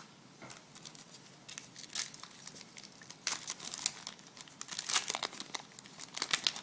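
Foil wrapper of a Topps Chrome baseball card pack being torn open and crinkled, in several irregular bursts of crackling.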